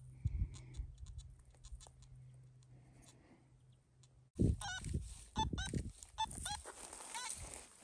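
Farm animals calling: a quick run of short calls that bend in pitch, starting a little over four seconds in, over low thumps. Before that there is only a faint steady hum.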